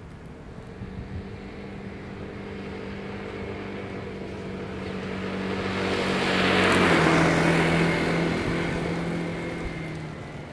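2020 Vespa GTS 300 HPE scooter's single-cylinder four-stroke engine and tyres passing by at steady speed. The sound builds as it approaches, is loudest about seven seconds in, when the engine note drops in pitch as it goes past, then fades as it rides away.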